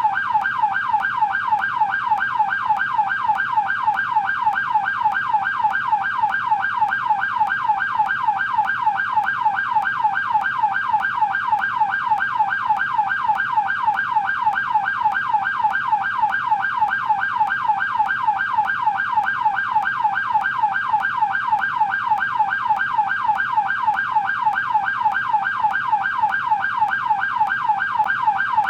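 American police car yelp siren wailing continuously, its pitch sweeping up and down rapidly several times a second in an even, unbroken cycle.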